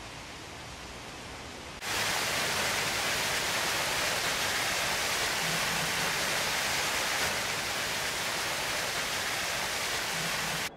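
Water of the Fountain of the Four Rivers pouring and splashing into its stone basin: a steady, loud rush of falling water that starts abruptly about two seconds in, after a fainter outdoor hiss.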